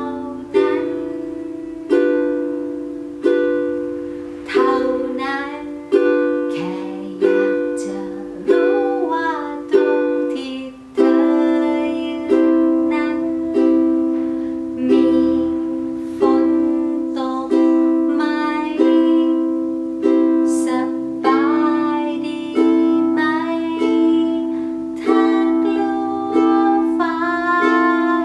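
Ukulele strummed with steady down-strums, about one a second, first on F and G7 chords, then changing to C and Am about eleven seconds in. A woman sings a Thai pop melody over it.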